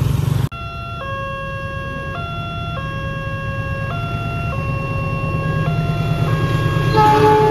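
Electronic two-tone warning siren of a railway level crossing, switching back and forth between a short higher tone and a longer lower one, over a steady low engine rumble. A second, louder tone joins near the end.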